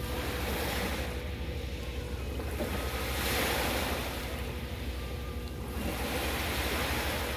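Small sea waves breaking and washing up a sandy beach, three times about three seconds apart, each a swell of surf hiss that fades back. A steady low rumble runs underneath.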